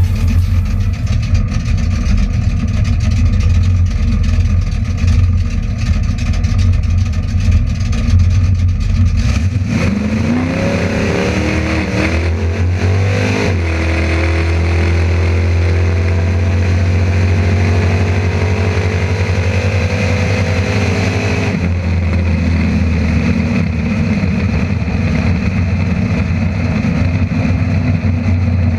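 Ford Pop drag car's engine heard from inside the cabin: a deep steady idle, then about ten seconds in it launches and revs up in three rising climbs as it shifts through the gears. About twenty-one seconds in it drops off throttle and runs low and rough as the car slows.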